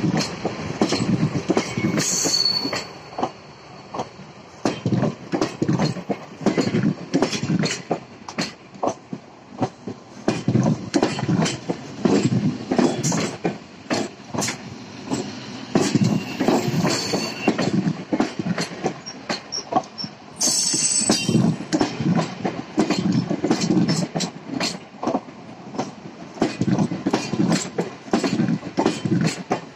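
12-car EMU electric suburban train rolling past over rail joints and track points, its wheels clattering and clicking in recurring bursts. Short high wheel squeals come about two seconds in and around sixteen seconds, and a sharper screech around twenty seconds.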